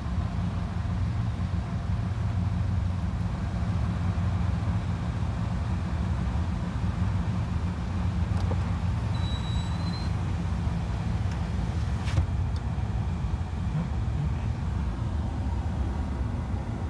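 Steady low rumble of a car idling, heard from inside the cabin. A brief faint high tone comes about nine seconds in, and a single sharp click about twelve seconds in.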